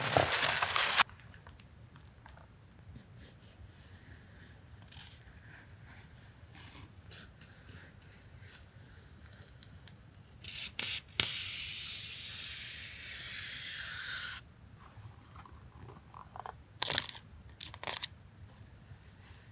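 Paper and plastic packaging being handled. It crinkles loudly for the first second, goes quiet with faint light ticks, then gives a steady tearing sound for about four seconds past the halfway point, and a few sharp rustles near the end.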